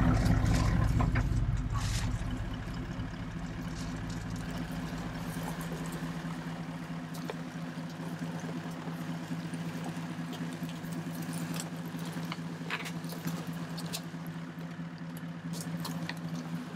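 4WD engine running steadily at low revs as the vehicle creeps down a steep dirt track, louder for the first two seconds or so and then quieter, with loose items rattling and clattering.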